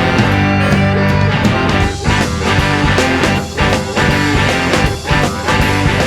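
Rock band playing an instrumental passage, guitar to the fore, with a steady beat.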